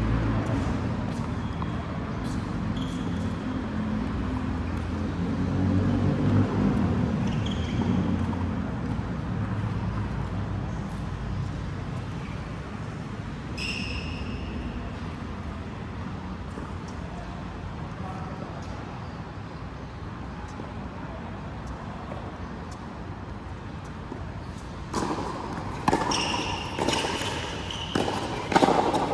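Court sounds of a doubles racket-sport match: a few short shoe squeaks on the court floor over a low murmur, then near the end a rally of sharp racket strikes.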